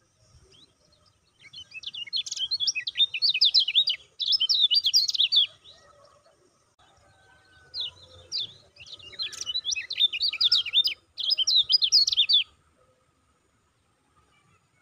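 Kecial kuning (lemon-bellied white-eye) singing its 'ciak ciak' song: two long bouts of rapid, high, chattering notes with a pause of about two seconds between them.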